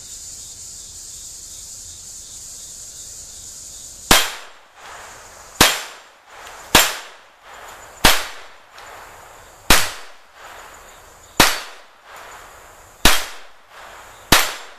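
Eight shots from a Smith & Wesson M&P 22 Compact .22 LR pistol, fired at a steady pace about one and a half seconds apart, beginning about four seconds in.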